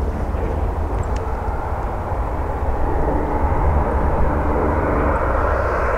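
Jet engines of a Boeing 737-800 airliner (CFM56 turbofans) running as it turns onto the runway, growing louder about halfway through, over a steady low rumble.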